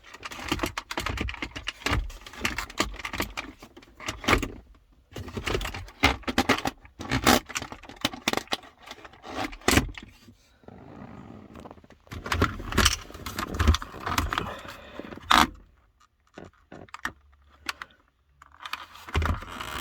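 Plastic glove box and dashboard trim of a car being handled and unclipped: irregular clicks, knocks and rattles with some scraping, pausing twice.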